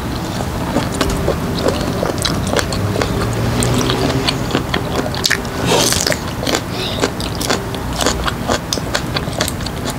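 Wet, sticky chewing of rubbery cooked baby octopus in chili sauce, with many irregular sharp mouth clicks and smacks and a louder noisy burst about six seconds in.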